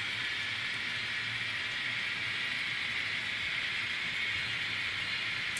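Kato N scale model train running on the track: a steady whirr of wheels on rail and motor, with a low hum underneath.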